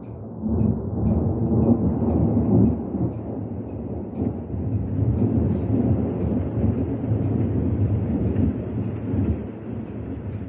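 Rolling thunder rumbling through a storm, loudest about one to three seconds in and then going on more evenly.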